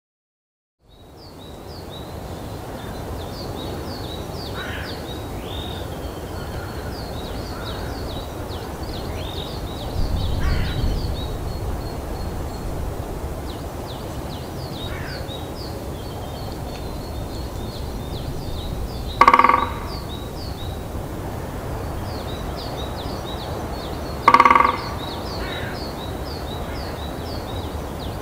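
Great spotted woodpecker drumming on a dry pine branch: two short, rapid rolls about five seconds apart in the second half, the branch ringing with each. This is the male's territorial drumming, which announces an occupied territory and attracts a female. Small birds chirp continuously high in the background.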